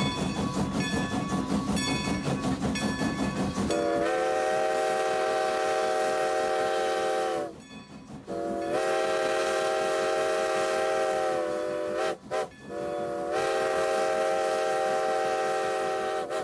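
Locomotive bell ringing steadily over a low engine rumble, then a multi-chime locomotive air horn sounding a chord: two long blasts, two quick toots, and a final long blast.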